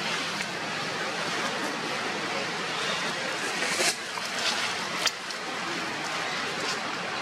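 Steady rushing outdoor background noise, with two sharp crackles of dry leaves about four and five seconds in as a long-tailed macaque walks over them.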